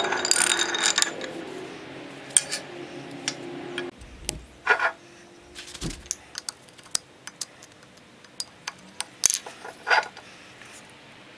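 Metal clinking and knocking as the parts of a rusty Wilton Cadet vise are handled: a quick rattle of clinks at the start, then scattered sharp taps and a few louder knocks as the cast-iron jaw is moved about on a steel workbench.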